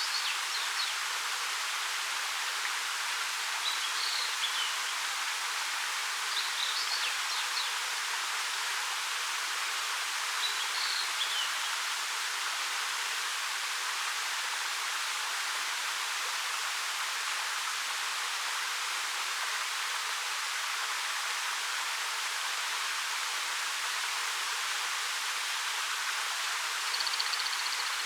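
Steady rushing of a 13 m waterfall (Ariake Falls) falling over rock. Short high bird chirps come through it four times in the first half, and a brief high trill near the end.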